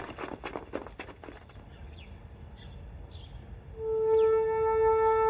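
Flute background score enters about four seconds in on a long held note, after a quiet stretch. Before it, a run of knocks or steps fades out in the first second and a half, and a few faint high chirps come through.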